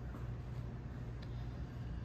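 Steady low background hum with a faint tick about a second in.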